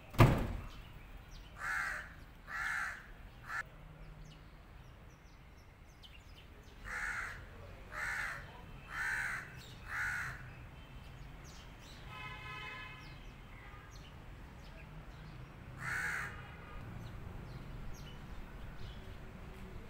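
A crow cawing: harsh caws in a run of three, then four about a second apart, then a single caw later on. A sharp knock right at the start is the loudest sound.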